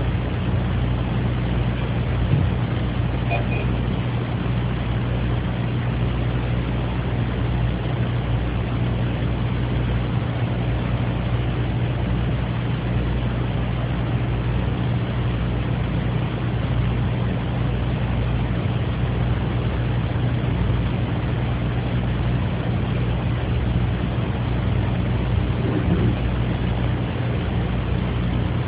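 Steady low hum and hiss of room noise picked up by a phone voice recorder, with a faint man's throat-clearing near the end.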